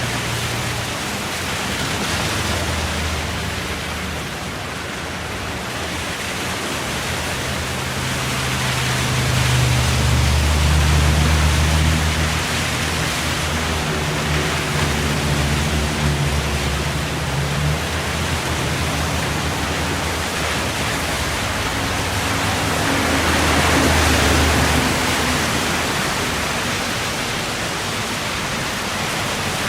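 Road traffic: a steady rush of tyre noise over a low engine hum, swelling twice as vehicles pass, about a third of the way in and again past three quarters.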